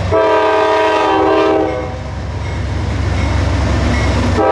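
Norfolk Southern GE diesel locomotive sounding its air horn, a multi-tone chord held for nearly two seconds, then a second blast starting near the end. Beneath it, the low, steady running of the diesel locomotives as the train passes close by.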